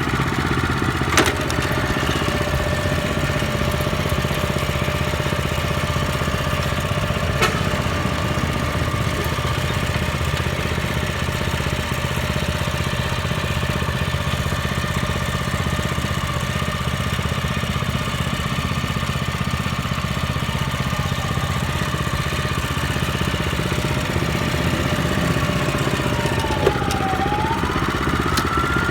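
Small engine of a used Japanese walk-behind tiller running steadily in a low gear (second). There are a few sharp clicks, and near the end the engine note dips briefly and then climbs back up.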